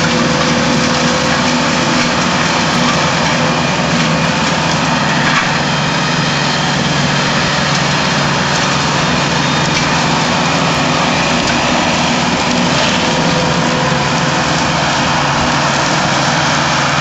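Compact tractor's diesel engine running steadily under load, driving a PTO-powered forest mulcher whose hammer rotor is shredding brush and ground cover in a loud, even noise.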